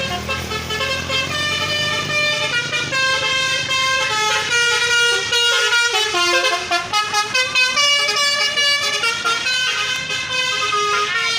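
Telolet bus horn, a Basuri multi-tone horn, playing a tune of short stepped notes one after another. The notes come quicker around the middle.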